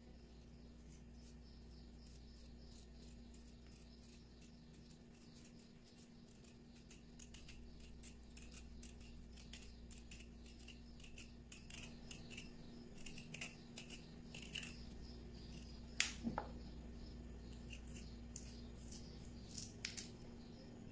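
Faint crisp clicks and scrapes of a small knife cutting the skin from a kohlrabi, sparse at first and then coming more often, with one sharper knock about two-thirds of the way through.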